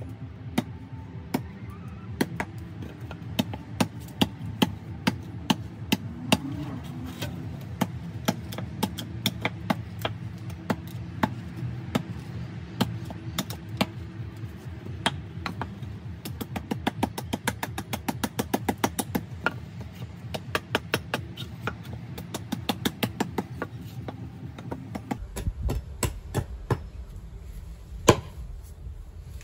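Hatchet chopping and splitting a wooden board on a tree-stump chopping block: repeated sharp strikes of the steel head into wood, with quicker runs of lighter strikes in the middle and one hard strike near the end.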